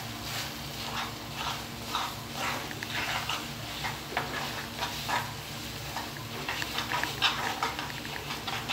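Metal spoon stirring and scraping a thick ground urad dal paste around an oiled kadai: an irregular run of short scrapes and clicks, with faint sizzling, as the batter is lightly roasted to take off its raw smell. A steady low hum runs underneath.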